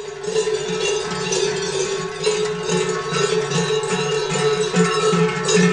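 Several large Appenzell cowbells (Schellen) worn by Silvesterchläuse, clanging together in a steady swinging beat of about two to three strokes a second, their tones merging into one sustained ringing chord.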